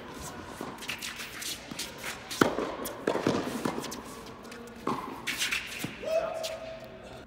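Tennis ball struck by rackets and bouncing during a doubles rally on an indoor hard court, the sharp hits echoing in a large hall, the loudest about two and a half seconds in. A drawn-out squeak about six seconds in.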